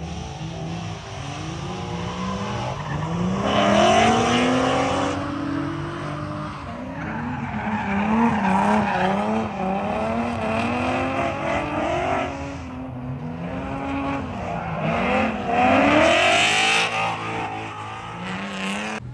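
Ford Mustang 5.0 V8 drifting: the engine revs up and down again and again while the rear tyres squeal and skid. It is loudest about four seconds in and again near the end.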